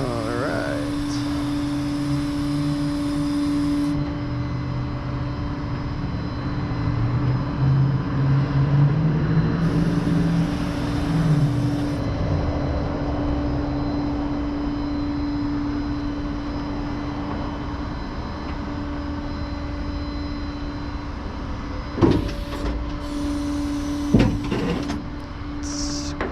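Motor vehicle engine running with a steady whine over it. The engine note rises and falls for a few seconds in the middle. Two sharp knocks come near the end.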